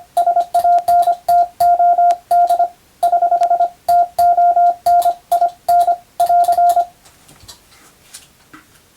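Hand-sent Morse code (CW): a single steady beep keyed on and off in dots and dashes at a practised pace, each element with a sharp click from the telegraph key. The sending stops about seven seconds in.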